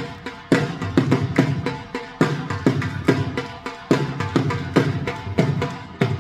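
Bhangra music driven by a dhol drum beat: heavy drum strokes about three to four a second over a held backing melody.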